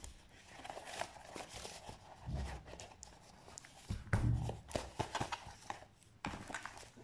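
Hands handling stiff paper and cardboard: scattered light rustles, taps and clicks, with a couple of dull thumps about two and four seconds in.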